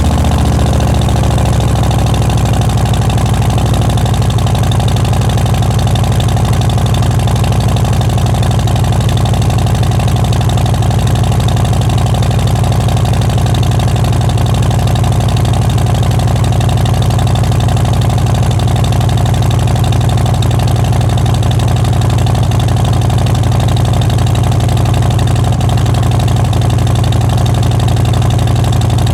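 Harley-Davidson Fat Boy 114's Milwaukee-Eight 114 V-twin idling just after starting, settling down in the first second or two and then running at a steady, loping idle.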